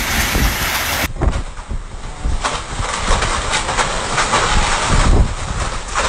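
Gale-force wind rushing and buffeting the phone's microphone in a loud, steady roar, with a string of sharp knocks and rattles through its second half.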